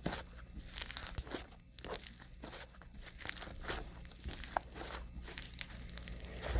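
Hands stretching, pulling and squishing a stiff slushy slime with bead pieces, giving an irregular stream of small crunches and crackles.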